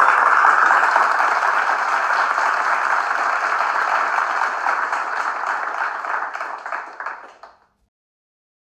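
Crowd applause, a dense patter of many hands clapping that fades away and stops near the end.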